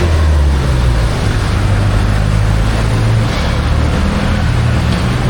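Street traffic: a motor vehicle's engine running close by, a low hum that shifts in pitch a couple of times, over a steady wash of road noise.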